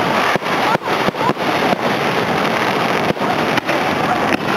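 Aerial fireworks shells bursting in quick succession, their bangs and crackle running together into a loud, continuous din, with a few short rising whistles.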